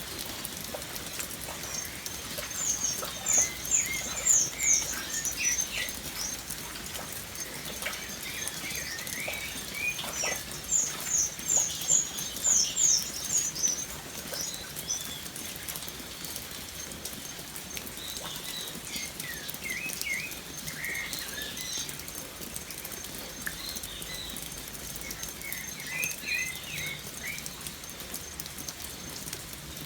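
Steady light rain with birds calling over it: two runs of quick, high, falling notes about three and ten seconds in are the loudest sounds, followed by scattered lower chirps.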